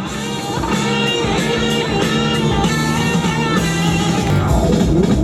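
Rock music with electric guitar and a drum kit, loud and steady.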